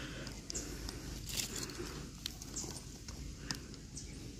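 Scattered faint clicks and light knocks of small split sticks at a just-lit kindling fire, over a steady low background rumble.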